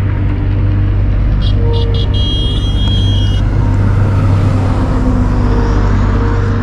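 Motorcycle riding at highway speed: wind noise on the microphone over a steady engine drone. A high-pitched tone sounds for about two seconds, starting about a second and a half in.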